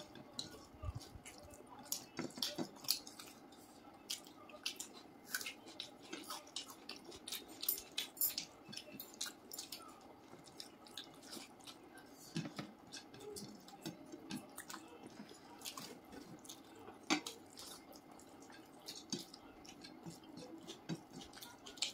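Eating by hand: irregular wet clicks and smacks of chewing, with the squish of fingers mixing rice and curry on the plates.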